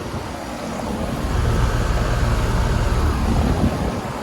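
Outdoor air conditioner condensing units running with a steady whooshing noise; a deep rumble swells up about a second in and drops away just before the end, some two and a half seconds later.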